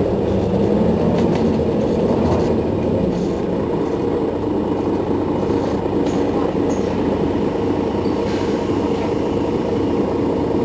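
Mercedes-Benz Citaro city bus's rear-mounted diesel engine idling steadily while the bus stands still.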